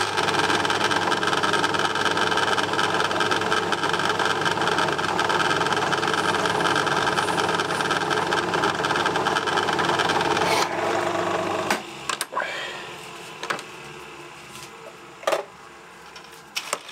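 Small metalworking lathe running, its motor and drive humming steadily while a tool chamfers the end of a small turned pin. About eleven seconds in the lathe is switched off and the hum stops, followed by a few light clicks and knocks.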